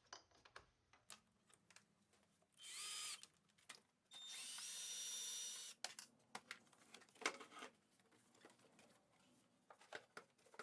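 Cordless power drill/driver running twice in short bursts, the first under a second and the second nearly two seconds long, its motor whine rising in pitch as it spins up. Scattered faint clicks and knocks of parts being handled in between.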